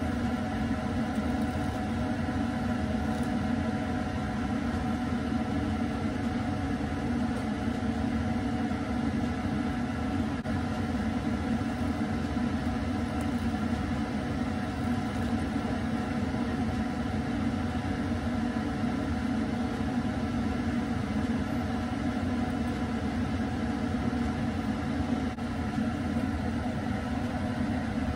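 Steady hum of a fan or small motor: several steady tones over a low rumble that does not change.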